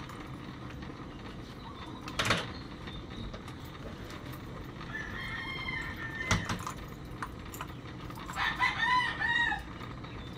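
A rooster crowing: a short call about five seconds in, then a fuller crow of several rising-and-falling notes near the end. Two sharp knocks, about two and six seconds in, sit over a steady low hiss.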